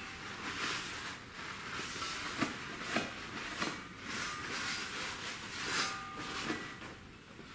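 Cloth shop rag wiping the inside of a metal bellhousing: a series of irregular rubbing and scrubbing strokes.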